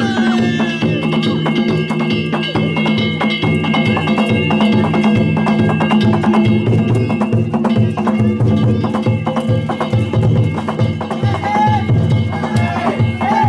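Danjiri festival music: a taiko drum beaten in a quick, steady rhythm under the constant ringing of struck hand gongs.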